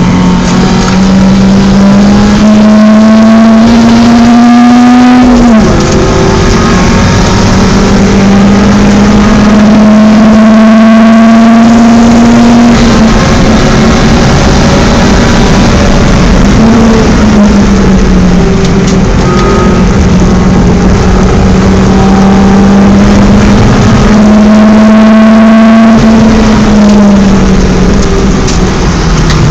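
BMW 318is four-cylinder engine under hard load on a race track. The engine note climbs slowly at high revs and falls off sharply several times as it changes gear or lifts, over steady wind and tyre noise.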